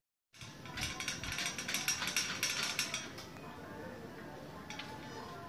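A metal lattice gate rattling and clinking as a small child climbs its bars, busiest for about two seconds near the start and then quieter.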